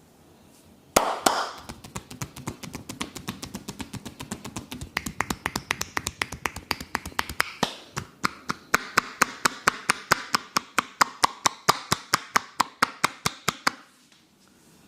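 Hands striking the body in a rapid tapping massage stroke, with sharp even slaps at about five a second. It begins with a loud strike about a second in and stops abruptly near the end.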